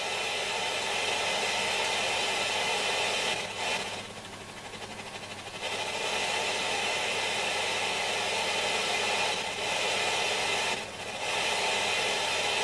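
Hacker Hunter RP38A transistor radio's loudspeaker giving a steady rushing hiss from an oscillating IF stage, as the loose second IF transformer core is turned. The noise drops back a few times, most clearly for about a second and a half near the middle, before returning.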